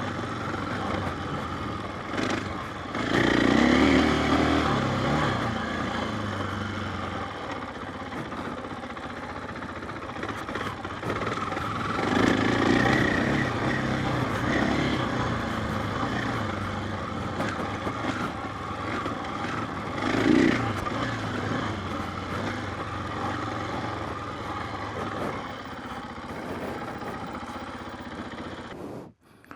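KTM 500 EXC dirt bike's single-cylinder four-stroke engine running under changing throttle while being ridden. It swells louder a few times, about 3, 12 and 20 seconds in, and falls away abruptly near the end.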